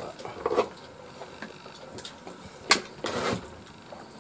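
A metal ladle knocking and scraping in a wok as stew is served onto a plate: a sharp clink about half a second in, then a louder clink and a brief scrape a little under three seconds in.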